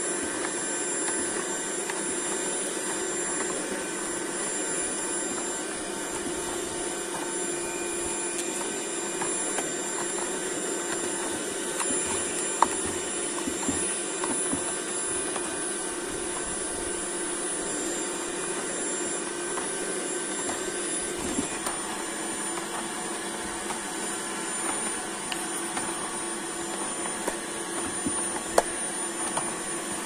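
Supra vacuum cleaner running steadily with its floor brush on grass, a constant motor whine over rushing air, with a few sharp clicks.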